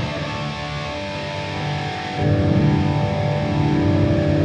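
Electric guitar chords played through a Boss Katana Gen 3 2x12 combo amp, each chord left to ring. A second, louder chord is struck about two seconds in.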